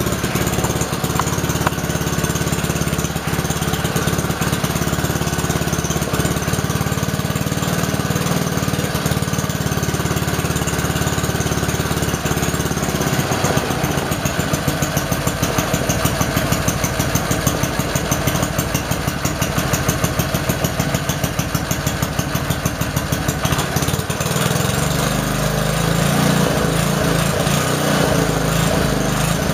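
1954 Montgomery Ward Chor Trac's small engine running steadily after a tune-up, with cleaned carburetor and newly done points. Its firing beat grows more distinct for a stretch in the middle.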